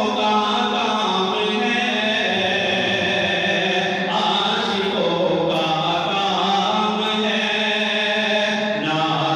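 A man's voice chanting a naat into a microphone, a devotional poem sung melodically in long held notes that step and glide in pitch.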